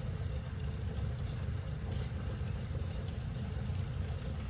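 Lapidary rock saw running steadily with a low hum as it cuts through a basalt stone.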